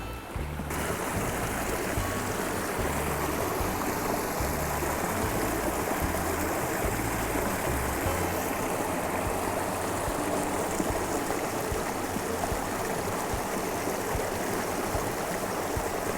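Flowing stream water rushing steadily, starting suddenly just after the beginning. Low bass notes of background music sit under it for about the first half.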